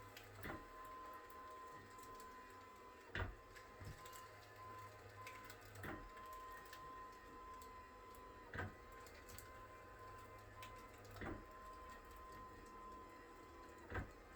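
Cox flexion-distraction chiropractic table working through repeated flexion cycles: a soft knock about every two and a half seconds, six in all, over a faint steady whine and low hum.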